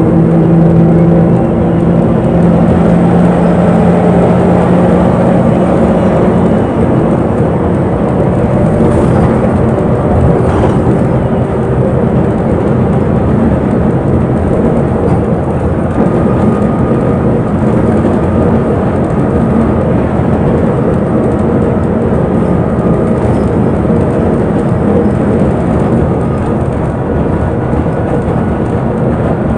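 Inside a moving bus: steady engine drone and road rumble. A clear engine hum stands out over the first several seconds, then blends into the rumble.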